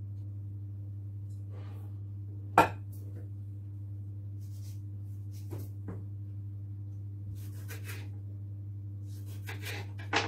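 Knife and food handling on a plastic cutting board while avocado is sliced: scattered knocks and short scrapes, with one sharp knock about two and a half seconds in and another near the end, over a steady low hum.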